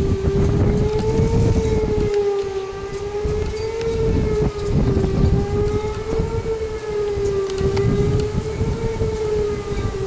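Outdoor tornado warning siren sounding a long steady tone whose pitch wavers gently up and down, over a heavy irregular low rumble.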